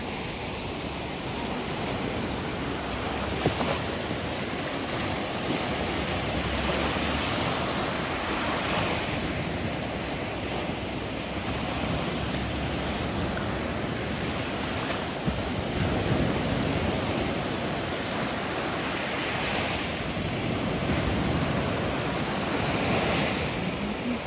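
Sea waves washing and breaking on the shore in a steady rush that surges louder every few seconds as each wave comes in.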